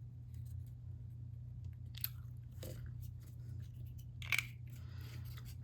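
Faint handling noises as small cardboard and balsa model-rocket parts are fitted together: scattered light clicks and a few brief crunchy rustles, the clearest about four seconds in, over a steady low hum.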